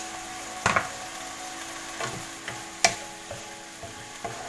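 A spatula stirring bamboo shoots and vegetables in a nonstick wok over a steady sizzle, with a few sharp knocks against the pan, the loudest about a second and about three seconds in.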